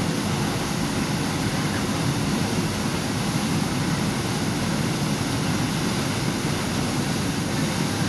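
Waterfall plunging into a pool: a steady rushing of water with no change.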